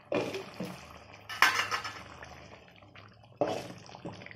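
Thick tomato-chilli masala simmering in a pot, with three sudden wet bubbling pops that fade quickly over a faint steady hiss.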